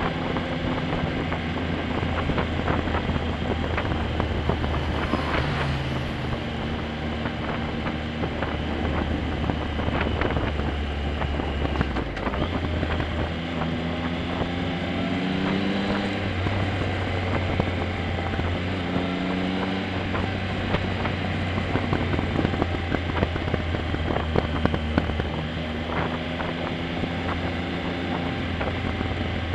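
Motorcycle engine running under way on a winding road, its note rising as the throttle opens several times in the middle and again near the end. Wind rushes steadily over the microphone throughout.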